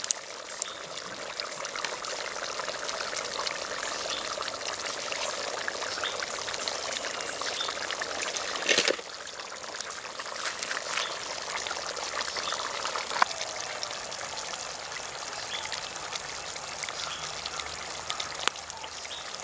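Jackfruit seed curry bubbling in a pot over a wood fire: a steady liquid bubbling with many small pops, and a brief louder burst about nine seconds in.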